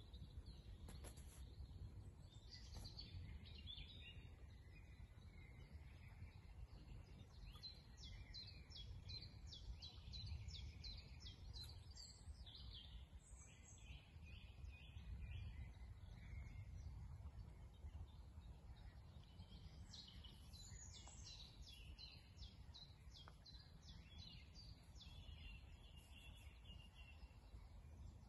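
Faint songbirds singing in bursts of quick, high chirping notes, over a low steady rumble.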